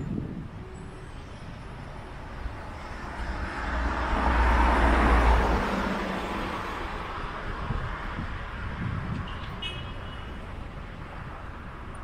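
A road vehicle passing by: tyre and engine noise with a deep rumble swells to a peak about five seconds in and fades away, over a steady background of traffic noise.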